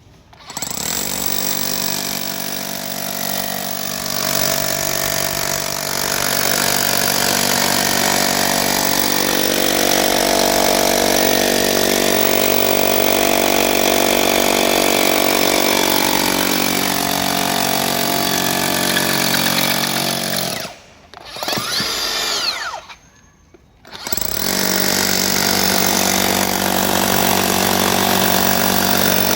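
Makita HR005G 40V cordless rotary hammer running with steady rapid hammering. It stops briefly twice about two-thirds of the way through, then runs again.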